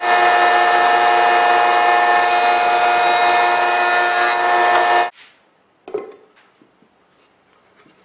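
A woodworking power tool running at a steady pitch, with a hiss of cutting or abrading added from about two seconds in until about four and a half seconds in. The sound cuts off suddenly about five seconds in, and a short knock follows about a second later.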